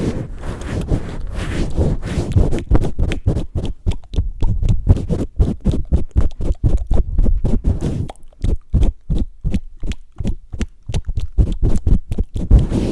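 Close-miked ASMR mic pumping: hands cup and press over the microphone in a fast, even rhythm, several muffled pulses a second. This starts about two and a half seconds in, after a stretch of steady rubbing on the mic.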